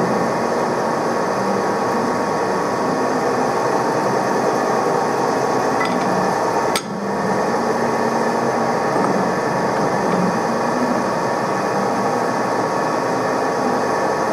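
Steady mechanical running noise, with one sharp click about seven seconds in.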